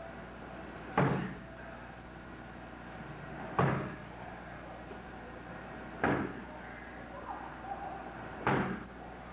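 Roundhouse kicks landing on a handheld strike pad: four sharp slaps, about two and a half seconds apart.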